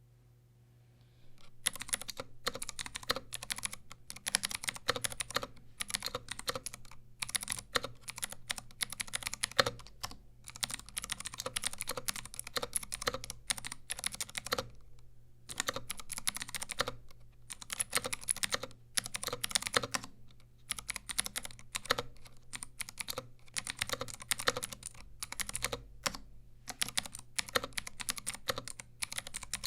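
Continuous typing on a Model M SSK-style mechanical keyboard with Cherry MX Blue clicky switches on an aluminium plate, without foam: a rapid run of sharp clicking keystrokes with short pauses, starting about a second and a half in.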